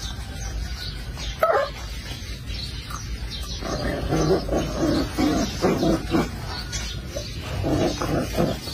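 Corgi puppies giving short, repeated yips and growly calls, once about a second and a half in, then in a run from about three and a half to six seconds, and again near the end.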